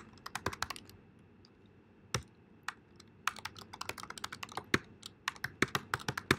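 Typing on a computer keyboard: a short run of keystrokes, a pause broken by a couple of single taps about two seconds in, then steady rapid typing from about three seconds in.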